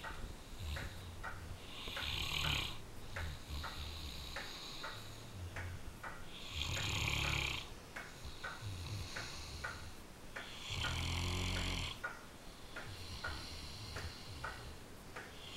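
A large mastiff-type dog snoring in deep sleep with its face pressed into a cushion. A louder snore comes about every four to five seconds, with quieter rattling breaths and small clicks in between.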